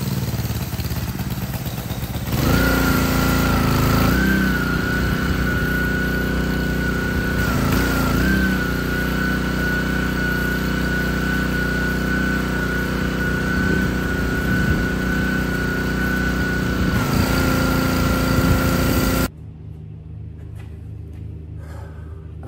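Gas pressure washer with a Honda engine running steadily, getting louder about two seconds in, with a steady high whine over it for most of its run. The sound cuts off suddenly near the end, leaving a quiet room tone.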